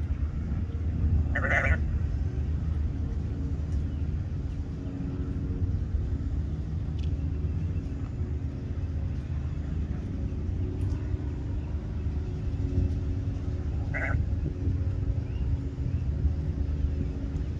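Two short sheep bleats, about a second and a half in and again some twelve seconds later, over a steady low rumble.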